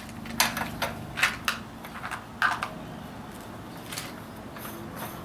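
Bicycle axle pegs and axle nuts being handled and fitted by hand: irregular sharp clicks and clacks, several in the first three seconds and a fainter one about four seconds in.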